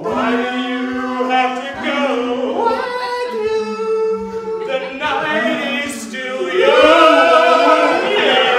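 Three men singing doo-wop harmony a cappella, holding long notes in close parts with no words. The singing swells louder near the end.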